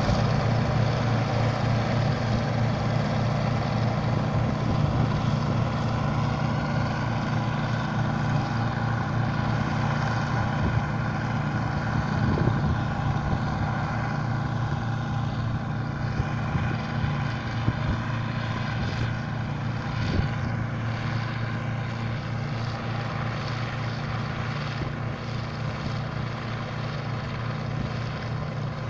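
Bizon Z056 combine harvester running while harvesting, a steady diesel engine and machinery drone that slowly fades as it pulls away.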